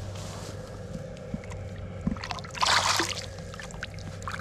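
Common carp being released into shallow lake water at the bank: one short splash of water about two and a half seconds in, with small knocks and trickles around it.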